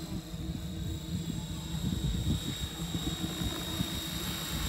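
Align T-REX 500 electric RC helicopter flying overhead on a 4-cell battery, giving a steady high whine over the rotor noise. Gusty wind buffets the microphone underneath.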